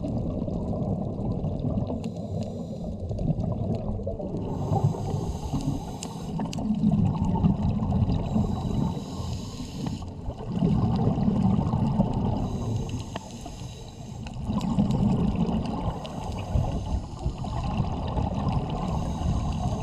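Scuba diver breathing through a regulator, heard underwater: a hissing inhale, then a rumble of exhaled bubbles, repeating about every four seconds.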